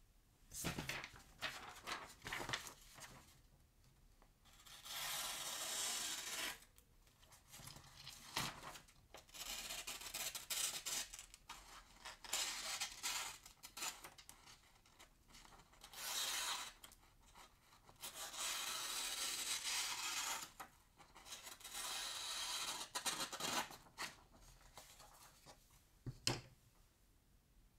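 Folding knife slicing through a sheet of paper, about seven long rasping cuts of a second or two each, with paper crinkling in between. A single sharp click near the end.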